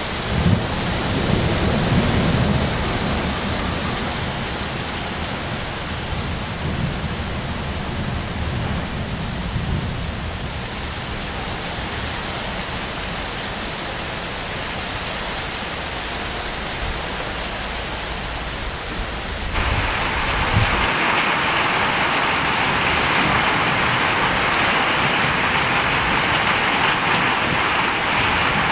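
Rain falling with low rolling thunder rumbling beneath it. About two-thirds of the way through it changes abruptly to a steady, heavier downpour hissing on wet asphalt and trees, with the rumble gone.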